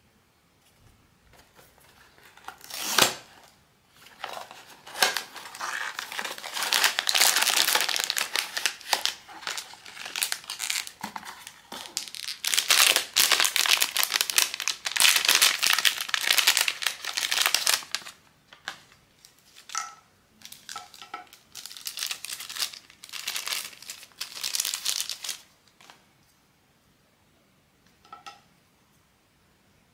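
Crinkly blind-box packaging being torn open and handled. There is a sharp burst about three seconds in, then long stretches of dense crinkling and rustling that stop suddenly a few seconds before the end.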